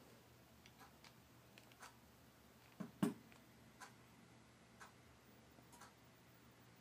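Faint, regular ticking, about one tick a second, with a single louder knock about three seconds in.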